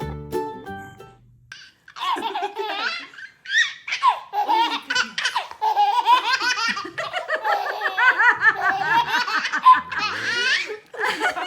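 A baby laughing hard in long runs of belly laughs, starting about two seconds in. A tinkly children's keyboard tune fades out just before.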